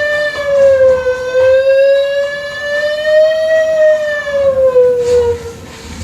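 A long, siren-like whistling tone with its pitch drifting slowly up and down, fading out near the end.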